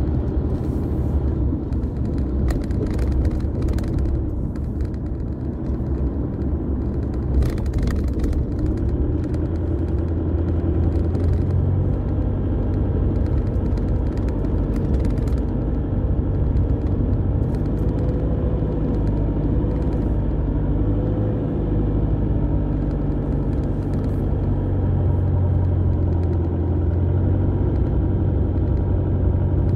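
Car engine and road rumble heard from inside the cabin while driving: a steady low drone whose engine note drifts slightly up and down. There are a few light clicks in the first eight seconds.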